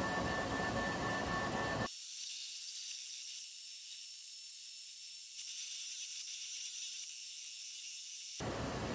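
QIDI X-Max 3 3D printer running a print, its motors giving a steady whine over a wash of machine noise. About two seconds in the lower part of the sound cuts out abruptly, leaving only a thin high hiss, and the full printer sound returns near the end.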